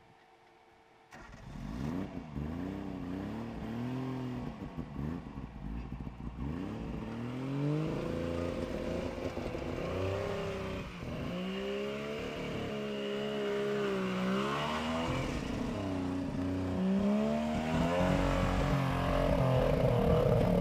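A Suzuki four-wheel drive's engine revving up and down as it climbs over rocks out of a gully. The pitch rises and falls over and over, and it grows louder and higher near the end as a wheel spins and kicks up dust on the steep climb. The sound starts about a second in.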